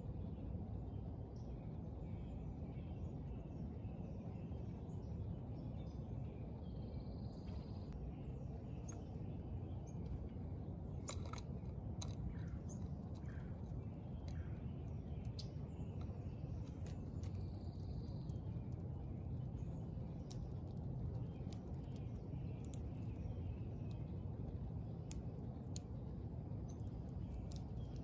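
Steady low outdoor background rumble with faint songbird chirps, and scattered light clicks and taps that come more often in the second half, from birds at a seed feeder.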